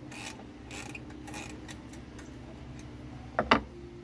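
Socket ratchet clicking in short strokes as a bolt is loosened, with two sharp metal knocks about three and a half seconds in.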